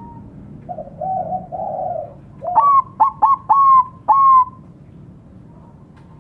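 Zebra dove (perkutut bangkok, a Thai-bred song line) cooing: three soft, low notes, then a run of five loud, clipped notes a little before halfway.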